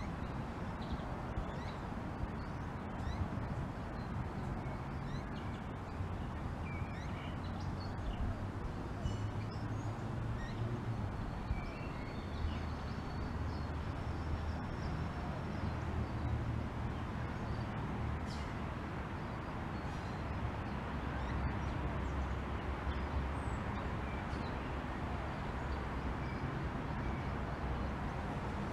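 Light rain falling steadily, with a low rumble of distant thunder that swells through the middle and fades again. A few faint high chirps sit above the rain.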